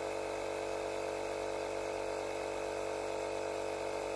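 Makita DMP180 18V cordless compressor running steadily under load as it pumps air into a 12-litre ball: an even motor-and-pump hum at a constant pitch.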